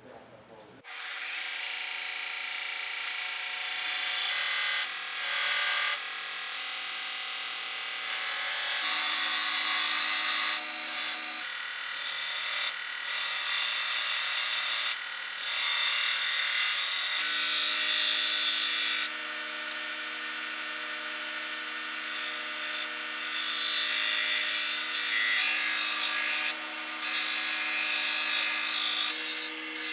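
Belt grinder running as a forged wrought iron san mai knife blade is ground on its abrasive belt before heat treatment: a steady grinding hiss over the motor's hum. It starts abruptly about a second in, and its loudness and pitch shift several times as the blade is worked.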